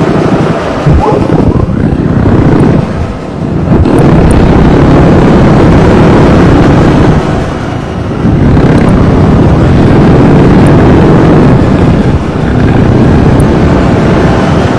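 Harsh noise (gorenoise): a loud, dense wall of noise that surges in stretches of three to four seconds, with short dips between them three times.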